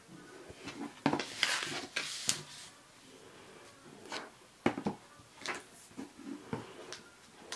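Paper sliding and rustling on a cutting mat, with several light clicks and taps as a clear acrylic stamp block and a plastic ink pad case are picked up and handled.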